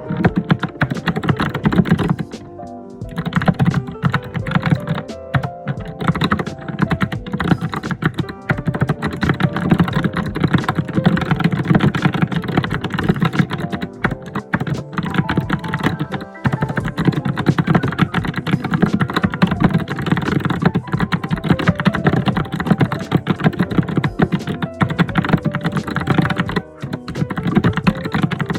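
Fast, continuous typing on a computer keyboard: a dense, unbroken run of key clicks with a brief lull about three seconds in.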